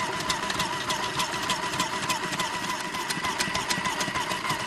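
Electric mandoline slicer's motor running with a steady, slightly wavering whine and a fast run of clicks as its thick julienne blade cuts a carrot into sticks.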